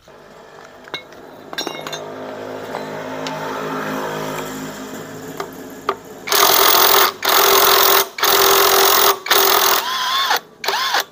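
A steady whirring hum swells and then fades. About six seconds in, a power tool starts running in a string of roughly seven short, loud bursts with brief gaps between them, consistent with an impact wrench working a nut off the scooter's CVT pulley.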